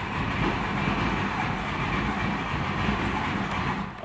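VW Golf 4 1.9 TDI ALH diesel cranking on the starter for about four seconds without catching, then cut off when the key is released.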